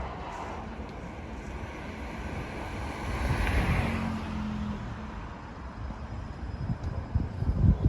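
Odakyu Line electric train rumbling along the track, with a swell and a low hum about three seconds in. Wind buffets the microphone in irregular low thumps near the end.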